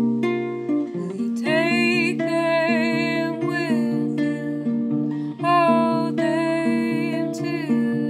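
Classical guitar plucked in a gentle picking pattern, with a woman's solo voice singing over it from about a second and a half in.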